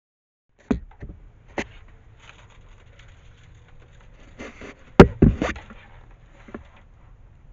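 Scattered sharp clicks and knocks, with one loud sharp crack about five seconds in followed quickly by a couple more knocks.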